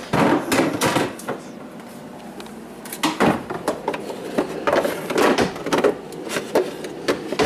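Household items being rummaged through and moved on kitchen shelves: irregular clatter and knocks of containers and shelves being handled, in several bunches.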